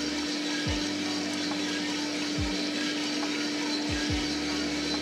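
Mill City 1 kg gas-fired drum coffee roaster running at the yellowing stage of a roast, with the burner near full gas: a steady whir of the blower and turning drum over an even hiss, with a constant hum.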